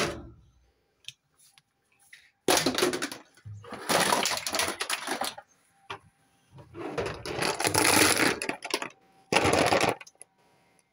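A knock at the very start, then a clear plastic storage box and loose plastic toy parts rattling and clattering as they are handled, in four bursts of about half a second to two seconds each, with short pauses between.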